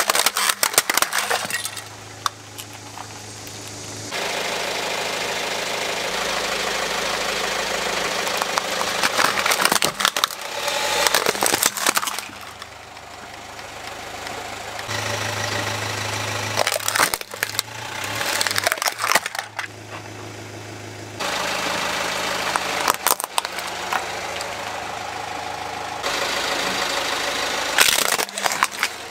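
A car's tyre rolling onto plastic toy trucks and crushing them, with several dense bursts of cracking and snapping plastic. Between the bursts the car's engine hums steadily at idle, and the sound changes abruptly several times.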